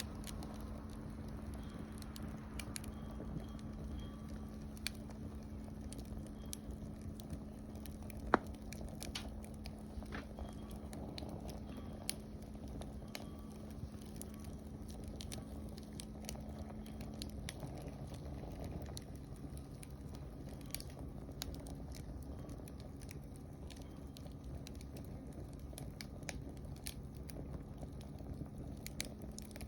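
Wood campfire crackling, with scattered sharp pops and one much louder pop about eight seconds in.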